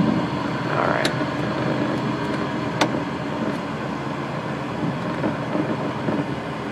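Cabin noise of a high-wing single-engine light airplane rolling out on the runway just after touchdown: the engine running low and steady under a constant rush of air and wheel noise, easing off slightly, with two sharp clicks about a second and about three seconds in.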